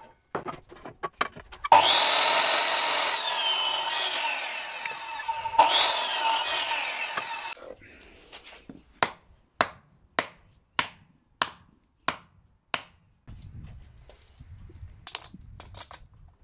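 Bosch sliding mitre saw spun up twice and run through a wooden slat each time, a whine with the blade cutting, the first cut starting about two seconds in and the second about six seconds in. Then about nine sharp, evenly spaced knocks, a wooden fence stake being driven into the ground.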